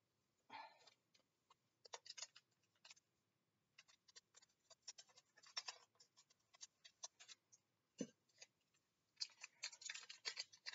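Quiet, scattered crinkling and clicking of Pokémon trading cards and plastic being handled in gloved hands, growing busier near the end.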